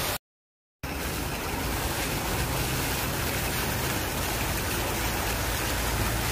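A brief dropout to silence just after the start, then a steady rushing noise with a low hum beneath it, carrying on unchanged.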